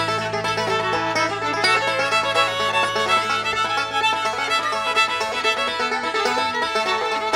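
Background music: an upbeat instrumental tune with fiddle and banjo, in a bluegrass style.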